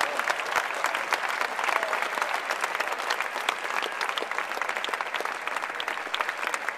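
Stadium tennis crowd applauding a point just played: many hands clapping, slowly dying down.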